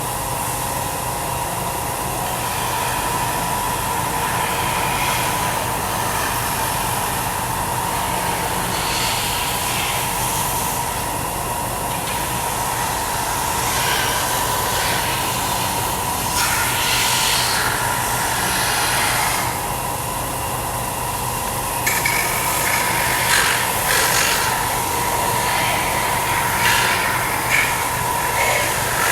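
Bench-top belt sander running steadily with a motor hum and whine, while a wooden cutout is pressed against the belt's rounded roller end to soften its edges, giving irregular passes of rasping sanding hiss that get louder and more frequent in the second half.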